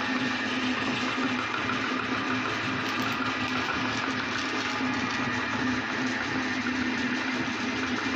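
Motor-driven meat grinder with a cast-aluminium head running with a steady hum, grinding chocolate fish into crumbs that push out through the perforated plate.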